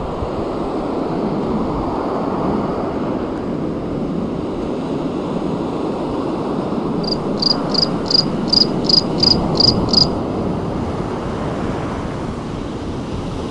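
Surf breaking and washing up a beach, with wind on the microphone. About seven seconds in comes a run of nine short high chirps, about three a second.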